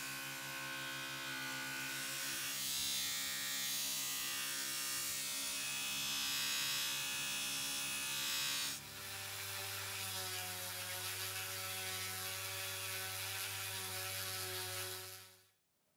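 Bench polishing motor running with a steel cleaver blade pressed against its spinning buffing wheel, the steady motor hum under a bright hiss of metal rubbing on the wheel. About nine seconds in, the sound changes to the steady hum of a handheld rotary tool with a felt polishing tip, which fades out just before the end.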